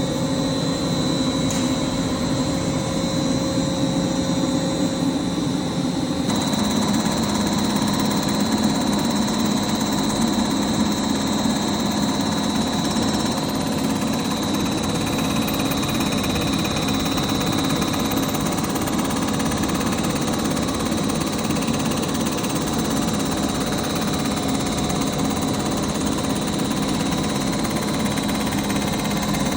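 Machine tool running steadily while machining a jet-ski engine's crankcase: a constant motor hum with a thin high whine. The sound shifts slightly about six seconds in.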